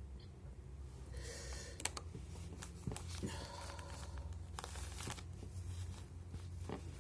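Kleenex tissues rustling and crinkling as they are handled, in several short spells with a few sharp clicks.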